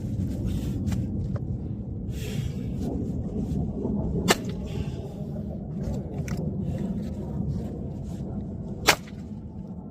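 A firewood-splitting machine running steadily with a low rumble, with a sharp crack about four seconds in and another near the end as logs split, and softer scraping and creaking of wood in between.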